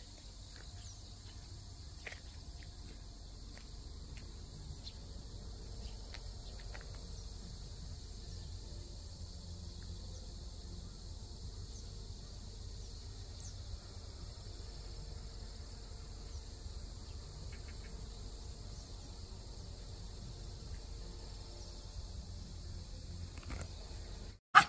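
Steady, high-pitched chorus of insects such as crickets, with a low rumble underneath.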